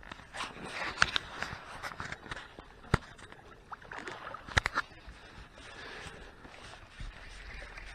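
Scattered knocks and clicks from handling on a fishing boat, over a light background hiss; the sharpest knocks come about a second, three seconds and four and a half seconds in.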